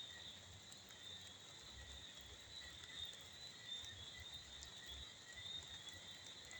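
Faint chorus of insects such as crickets, a continuous high-pitched trill, over a faint irregular low rumble.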